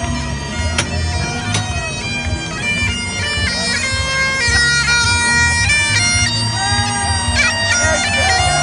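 Bagpipes playing a tune over their steady drones, with a low rumble underneath.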